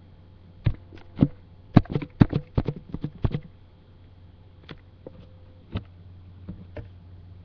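Irregular sharp clicks and knocks, a quick flurry of them in the first few seconds and then a few scattered ones, over a steady low electrical hum.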